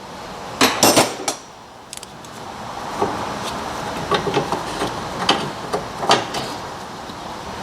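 Sharp metal knocks and clinks of hand tools, such as a pry bar, working against the rear suspension link: three loud strikes in the first second and a half, then a run of lighter taps and handling noise.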